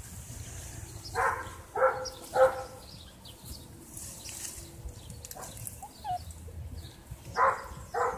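Five-week-old Great Dane puppy yapping: three short, high barks about a second in, then two more near the end.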